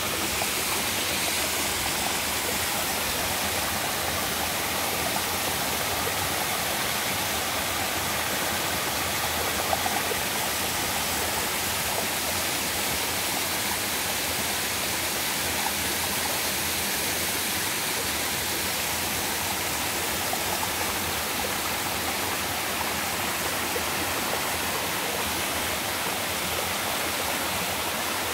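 A waterfall about six metres high pouring into a mountain stream: a steady, unbroken rush of falling water.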